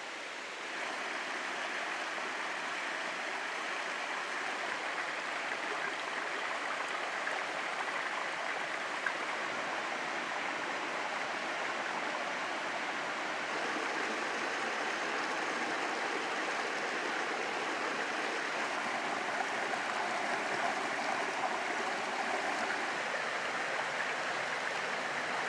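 Rocky mountain brook running over boulders and stones: a steady rush of water that grows a little louder about a second in.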